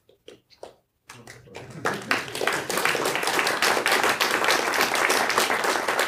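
Audience applauding: a few scattered claps in the first second, then applause that swells to steady, loud clapping by about two seconds in.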